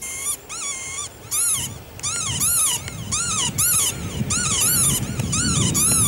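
A rapid series of short animal calls, each rising and falling in pitch, about two or three a second. Low music begins to build underneath from about two seconds in.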